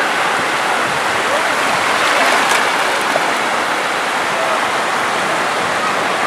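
Weak ocean surf breaking and washing up the shallows: a steady rush of foaming water.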